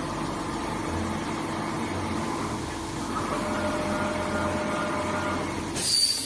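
CNC flatbed cutting plotter running: a steady motor hum with whining tones that come and go as the tool head travels over the panel. A brief, loud high-pitched hiss sounds just before the end.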